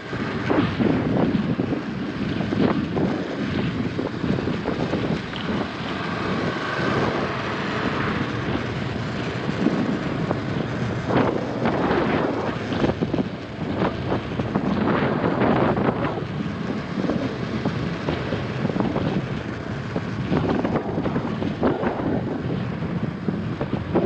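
On-board sound of a KTM 250 Adventure's single-cylinder engine running on a bumpy dirt track, largely buried under wind buffeting the camera's microphone, which rises and falls in gusts.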